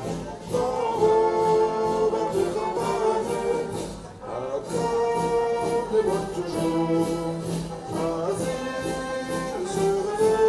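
Brass band music: a melody on sustained brass notes over a steady beat.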